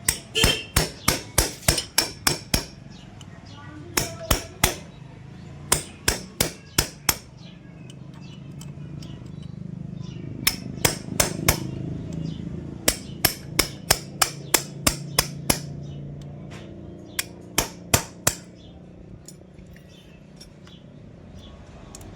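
Runs of sharp hammer blows, about three to four a second in groups of several, with short pauses between groups. A low steady hum swells in the background around the middle and fades again.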